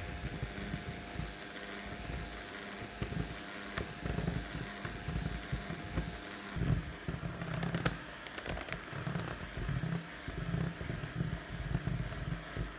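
Electric hand mixer running, its twin beaters churning butter, flour and matcha powder into a stiff dough in a glass bowl: a steady motor whine with uneven low knocking as the beaters work through the mixture.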